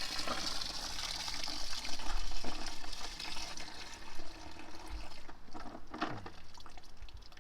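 Screen wash pouring out of the Land Rover Freelander 2's washer reservoir into a bucket through the hole left by the removed washer pump, tailing off about five seconds in.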